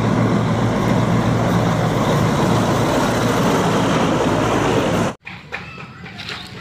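Truck engine running steadily, then cutting off abruptly about five seconds in.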